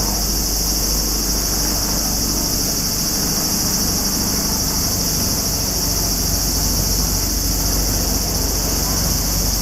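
Steady, unbroken high-pitched drone of a summer cicada chorus, over a low steady rumble.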